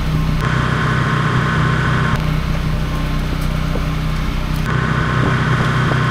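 Pressure washer's engine running steadily, with the hiss of the water jet starting and stopping twice as the spray is turned on and off.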